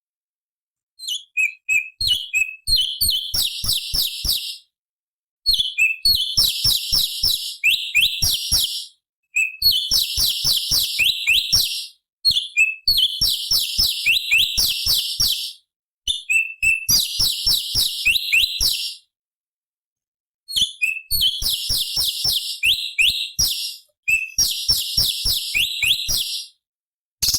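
Orange-bellied leafbird (cucak cungkok) singing in rapid, high-pitched phrases of sharp chirps and trills. There are about seven phrases with short pauses between them.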